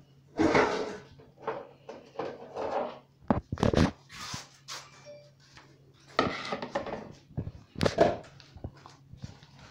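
Irregular knocks and clatter of a plastic mixing bowl and utensils being handled on a kitchen counter, loudest in a quick cluster about three and a half seconds in and again near eight seconds, over a low steady hum.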